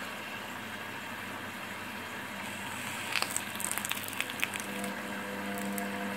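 Heated knife blade pressed into a toothpaste tube, sizzling and crackling as it melts and cuts through, with sharp crackles starting about three seconds in over a steady hiss.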